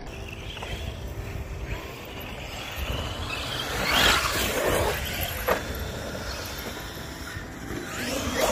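Large electric RC trucks running on a dirt trail. There is a loud rush about four seconds in and a sharp knock about a second and a half later.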